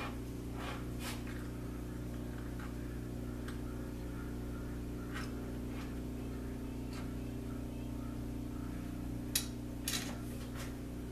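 South Bend lathe running steadily with a low, even machine hum, with a couple of light clicks near the end.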